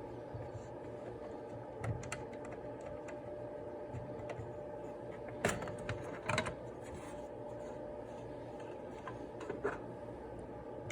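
A few light clicks and taps over a steady hum, with two sharper clicks about five and a half and six and a half seconds in.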